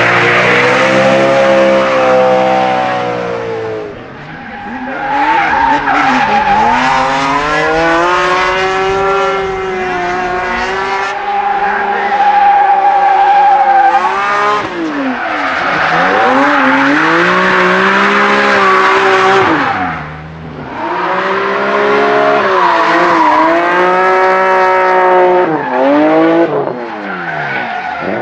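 Drifting BMW cars' engines revving high and falling back again and again, over the steady hiss and squeal of spinning, sliding tyres. Short lulls come about four seconds in and again about twenty seconds in.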